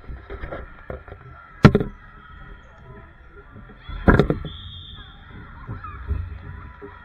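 A volleyball struck hard by hand twice, about two and a half seconds apart, each a sharp slap that echoes around the gymnasium.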